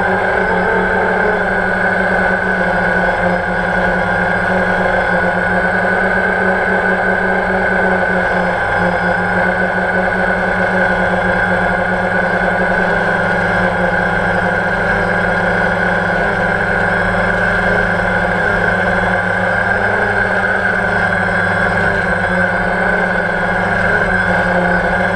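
Multirotor drone's electric motors and propellers running with a steady, unchanging whine, heard from the camera carried on the drone.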